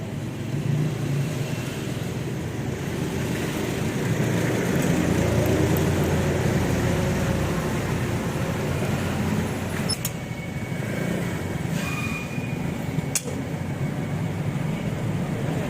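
Motorcycle engine running, getting louder about four seconds in, with two sharp clicks in the second half.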